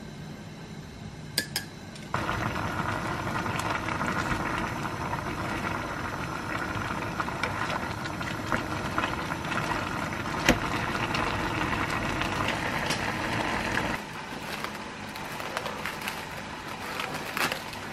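Chopsticks whisking beaten eggs in a ceramic mug, then a pot of saucy stir-fry on the stove bubbling and sizzling steadily while stirred with a wooden spoon; the sauce is still watery and not yet reducing. It cuts off suddenly, giving way to plastic wrap crinkling as it is stretched over the mug, with a few sharp clicks near the end.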